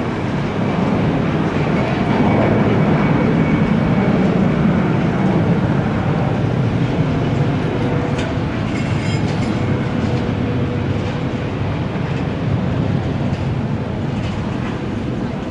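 Steady rumble of jet aircraft noise across the apron, with a faint steady whine over it.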